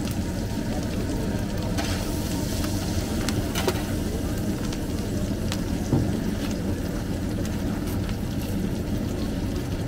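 Chopped kokoreç sizzling on a hot griddle over a steady low rumble, with a few sharp metal clicks of tongs and knife, the loudest about six seconds in.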